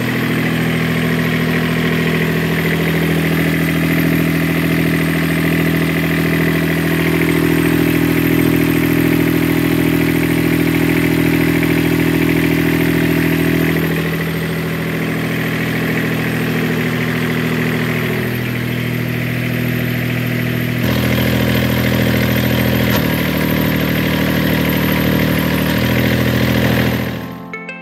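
Newly installed inboard engine in a sailboat running steadily, its note shifting a few times in the second half as the engine speed changes.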